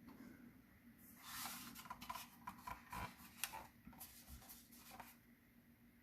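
Faint rubbing, scraping and small clicks of hands handling a light, hollow plastic prop chainsaw, starting about a second in and lasting about four seconds.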